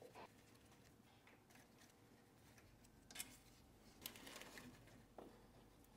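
Near silence, with a few faint clicks about three seconds in and a brief faint rustle a little after four seconds.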